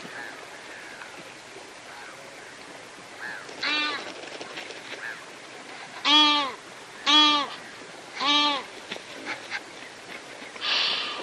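A waterbird honking four times, short nasal calls that rise and fall in pitch, a second or two apart, the first one quieter. A brief rush of noise follows near the end.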